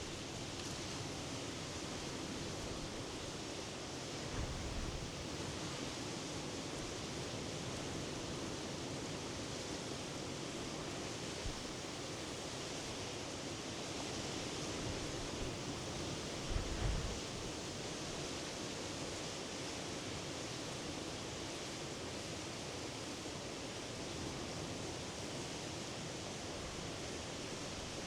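Steady wash of sea surf from the Norwegian Sea, an even hiss with no breaks. Two brief low thumps stand out, a few seconds in and again about two-thirds of the way through.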